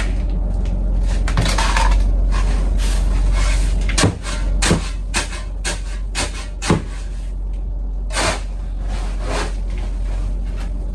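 Several sharp knocks and clatters, the clearest about four and seven seconds in, over a steady low hum.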